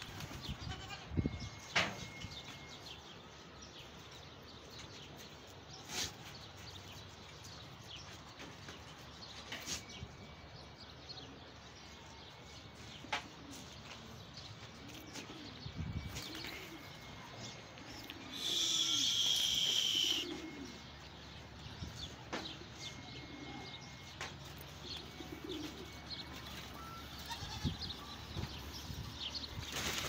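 A flock of black shamil pigeons cooing low, with a few sharp wing flaps and clicks as birds shift about. About two-thirds of the way through, a loud, high, thin squeal lasts about two seconds.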